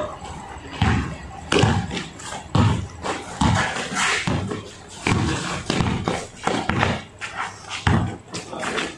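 A basketball bouncing on a concrete court as it is dribbled, a sharp thud about once a second, with players' shoes and calls around it.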